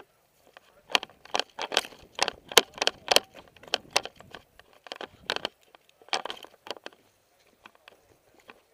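Footsteps crunching on gravel and dry, debris-strewn ground, about three steps a second, dying away after about seven seconds.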